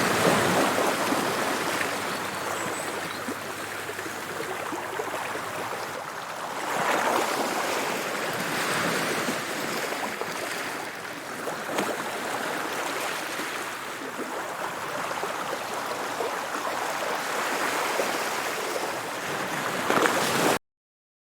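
Sea waves breaking and washing on a beach, a steady rushing surf that swells louder every few seconds. The sound cuts off suddenly near the end.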